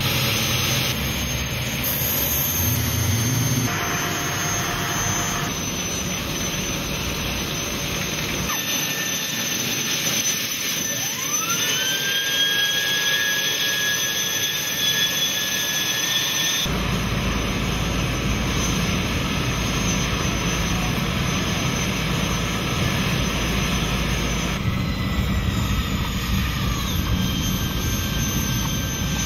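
Gas turbine engines of an offshore turbine race boat running at low speed. About eleven seconds in a turbine spools up, its whine rising in pitch and then holding steady as a high whistle over the engine noise. The sound changes abruptly several times.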